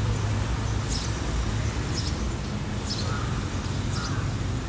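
Outdoor ambience: a steady low rumble of traffic or wind on the microphone, with short high bird chirps about once a second.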